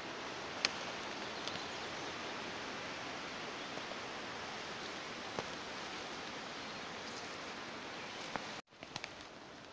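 Steady, even outdoor background hiss with a few faint clicks; it cuts out abruptly near the end and comes back quieter.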